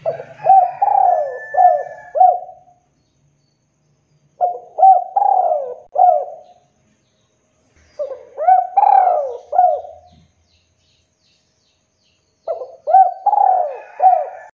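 Spotted dove cooing: four phrases of four or five rounded coos each, a couple of seconds apart.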